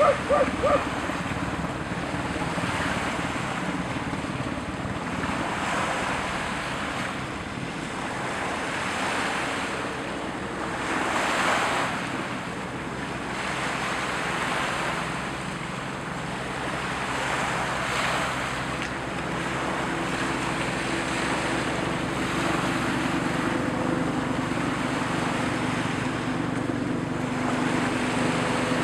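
Waves washing on the shore and wind on the microphone, over the steady hum of a CH-149 Cormorant search-and-rescue helicopter hovering out over the water. The hum grows stronger in the last few seconds as the helicopter comes nearer.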